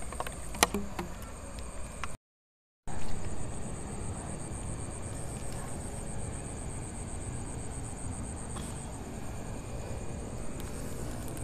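Steady high-pitched chirring of crickets over a low background rumble, with a couple of sharp clicks near the start and a brief dropout of all sound about two seconds in.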